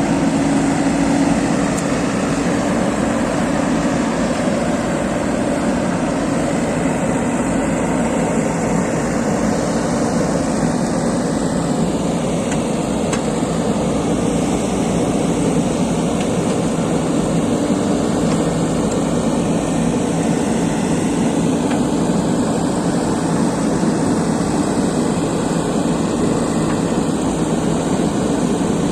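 Excavator's diesel engine running steadily, a continuous heavy drone without breaks.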